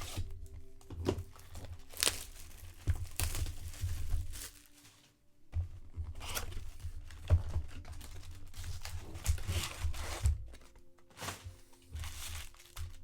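Shrink wrap and foil card packs from 2019 Bowman Draft Jumbo boxes being torn open and crinkled in bursts, with light knocks of handling on a table. Faint background music plays underneath.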